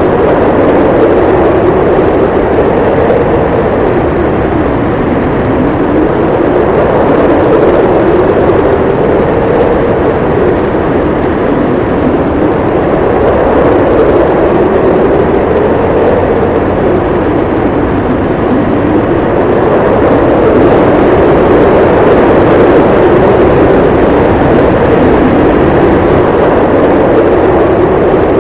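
Blizzard wind howling, its pitch slowly rising and falling every few seconds over a steady rush of noise.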